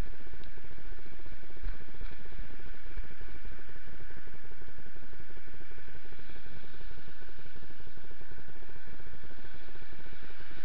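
Steady rushing noise on a body-worn camera's microphone as the wearer walks, with traffic passing on a wet road.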